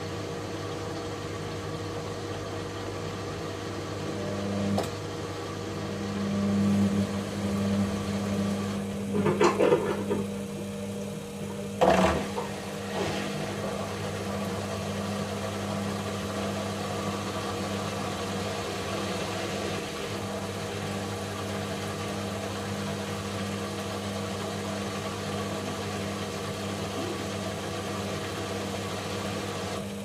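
Logik L612WM13 front-loading washing machine's drum motor speeding up about 4 to 7 seconds in, then spinning at a steady speed with a constant hum. A few clunks and rattles come around 9 to 13 seconds in.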